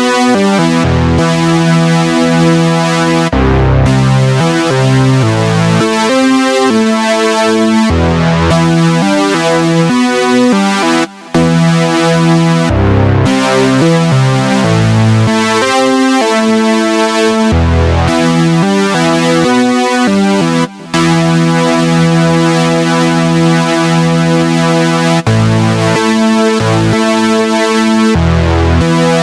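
Synthesizer keyboard music: sustained chords that change every second or two, with two very short breaks in the sound, about a third and two thirds of the way through.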